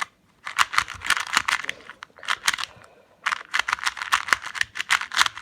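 Plastic MoYu Lingpo 2x2 speedcube being turned rapidly by hand: fast clicking and clacking of the layers. It comes in two spurts with a short pause about halfway.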